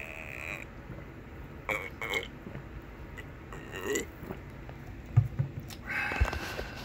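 A person sipping and swallowing a bottled coffee drink, with a few short gulping sounds. About five seconds in, the bottle is set down on the desk with a sharp thud.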